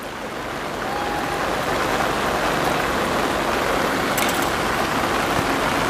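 Steady rain falling, a dense even hiss that grows louder over the first two seconds and then holds steady.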